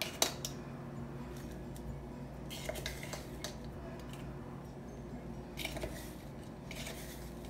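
A metal fork clinking against and scraping inside a can of baking powder as the powder is scooped out. There is a sharp clink just after the start, then short scratchy scrapes about three seconds in and again near the end.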